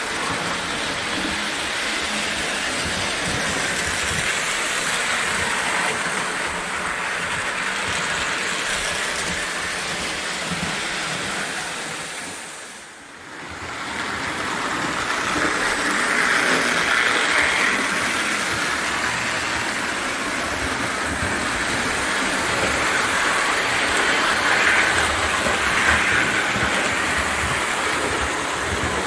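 O gauge toy electric train running around the track: a steady whir of the motor and wheels on the metal rails. The sound drops away briefly about halfway through, then returns.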